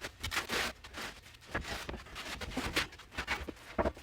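Irregular knocks, scrapes and clatter as a heavy steel plate and a wooden board are shifted and handled on a workbench, with a louder knock near the end.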